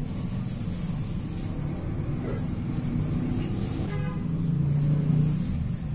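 Road traffic: a motor vehicle's engine running close by, growing louder toward the end, with a short horn toot about four seconds in.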